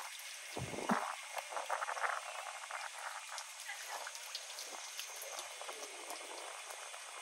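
A carrot being rubbed against a rough concrete block to grate it: a rasping scrape in short strokes, with small crackling clicks. The strokes are loudest about one and two seconds in, with a dull knock just before the first.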